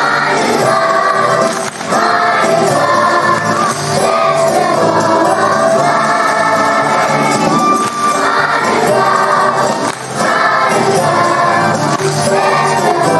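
A children's choir singing together with musical accompaniment, continuous and loud.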